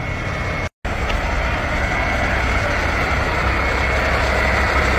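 Steady motor-vehicle engine and road noise, a low rumble with a faint steady hum, briefly dropping out just under a second in.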